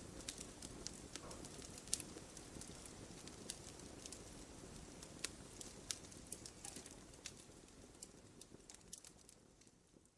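Wood fire crackling: irregular sharp pops and snaps over a soft low hiss, with one louder pop about two seconds in. The fire sound fades down near the end.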